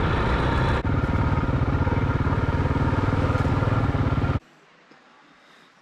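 Single-cylinder KTM enduro motorcycle engine running under way, with an even, rapid pulsing from its firing strokes. It cuts off suddenly about four and a half seconds in.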